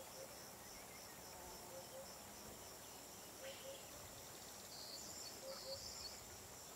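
Faint summer outdoor ambience: insects chirping in a steady high, pulsing rhythm of about four pulses a second. Under it, a bird's soft, low two-note call repeats about every two seconds.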